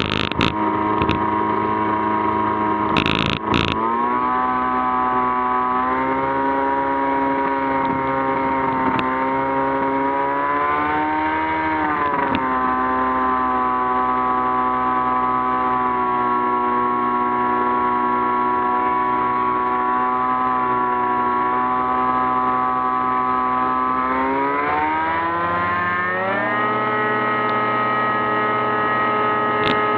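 Merlin PSA light-sport aircraft's piston engine and propeller running at low taxi power, with a brief rise and fall in pitch about ten seconds in. About 25 seconds in, the engine is throttled up to full power and its pitch climbs and holds high as the takeoff roll begins. Two short rushing noises come in the first few seconds.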